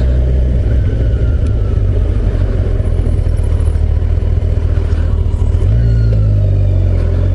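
Kawasaki Ninja 1000SX's inline-four engine running at low revs as the bike rolls slowly. The revs rise near the end as it pulls away.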